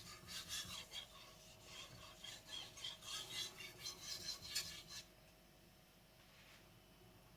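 Blue-steel carbon gyuto blade stroked back and forth on a Naniwa whetstone, a run of scraping strokes that stops about five seconds in.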